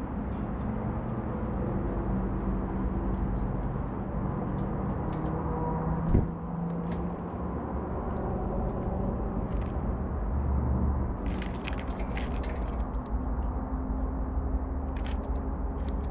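Birds at a feeder bowl of corn and peanuts make scattered light clicks and taps as they peck and pick at the seed, with one sharper knock about six seconds in. The birds are blue jays and a tufted titmouse. A steady low rumble runs underneath throughout.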